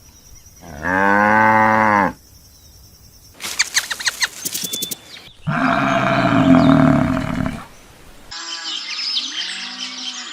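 A string of separate animal-call recordings played one after another: a cow's single long moo about a second in, followed by clicking and chirping, another loud, rough call, and high chirps near the end.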